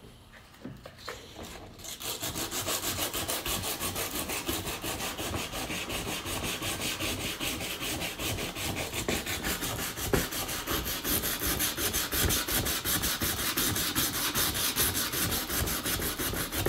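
Hand sanding a rusty metal wiper arm with 180-grit sandpaper. Quick, even back-and-forth rasping strokes start about two seconds in and keep a steady rhythm.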